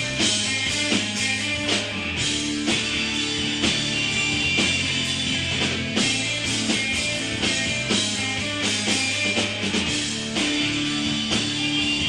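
Rock band playing live: guitars over bass and a drum kit keeping a steady beat.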